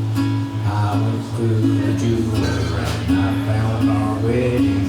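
Acoustic guitar strummed in a steady country rhythm, with sustained low bass notes under the chords, in an instrumental gap between sung lines.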